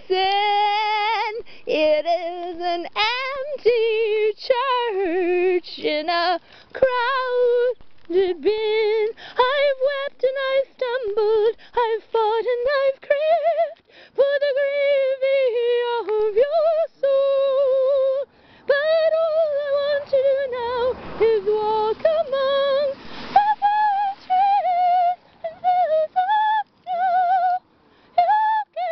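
A woman singing solo without accompaniment: a melody of long held notes with vibrato, broken by short pauses for breath between phrases.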